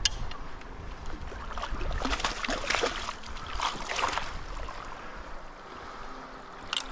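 Water of a shallow, gravel-bottomed stream running and splashing, with a cluster of irregular splashes between about two and four seconds in, under a low rumble.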